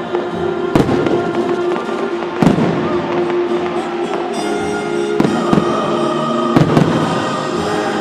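Fireworks shells bursting in a finale, with about six sharp booms, two of them coming in quick pairs, over loud music with sustained tones.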